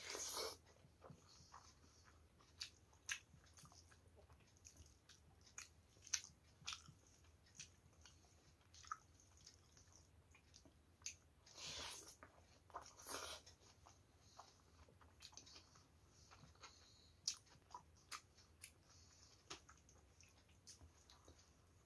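Quiet, close-up mouth sounds of a person eating rice and dal with her fingers: soft wet chewing clicks and smacks. Three longer, louder crunching bursts stand out, one at the start and two in the middle.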